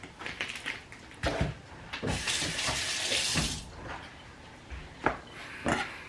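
Kitchen tap running briefly, for about a second and a half in the middle, among a handful of knocks and clatters from handling things at the counter.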